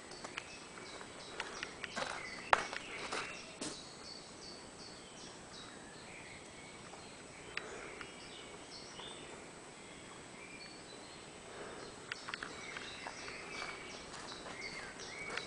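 Birds chirping, with scattered sharp clicks and steps from someone walking; the loudest click comes about two and a half seconds in.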